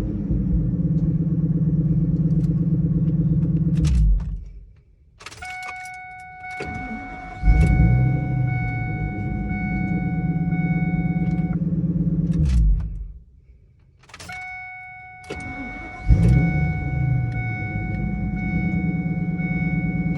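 Ford 6.8-litre V10 engine running and shut off about four seconds in, then started twice more with a sudden catch each time and shut off once in between. A click and a steady high whine come on a couple of seconds before each start and carry on into the first seconds of running: the 'wheezing' noise on startup the owner is asking about.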